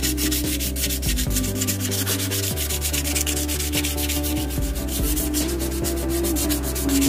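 Hand-sanding a painted scooter fender with a small piece of sandpaper: quick back-and-forth scratchy strokes, several a second, kept up steadily.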